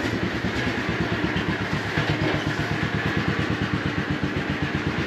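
1975 Wheel Horse C-160 garden tractor's single-cylinder Kohler K-Series engine running steadily with an even, rapid pulse.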